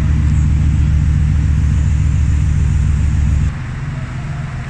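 Car engine idling: a loud, steady low rumble. About three and a half seconds in it drops to a quieter rumble.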